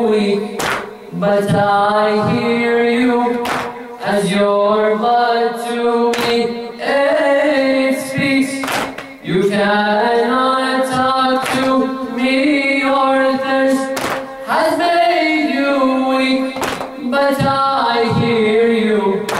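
Unaccompanied noha, a Shia mourning lament, sung by a young male reciter into a microphone in long, bending melodic phrases. Sharp hand slaps cut in every second or two.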